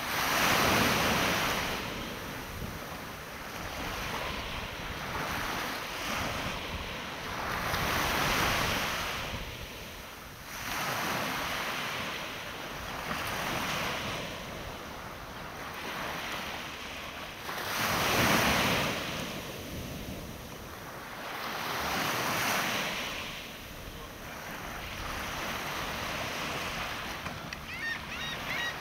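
Ocean waves washing on a shore, the sound of surf swelling and falling back every few seconds.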